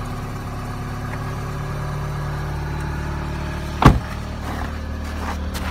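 Toyota Corolla Fielder engine idling steadily just after a hard cold start at −22 °C, having stood ten days in the frost. A single loud thump about four seconds in.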